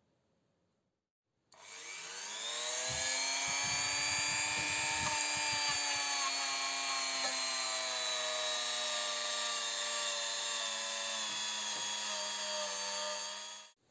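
An electric power tool's motor starts about a second and a half in, spins up quickly, and runs steadily with its pitch slowly sagging a little. It cuts off abruptly just before the end.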